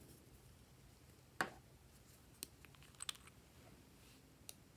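Faint room quiet broken by a few sharp clicks and taps from small plastic and glass bottles being handled, the loudest about a second and a half in and a quick pair near three seconds.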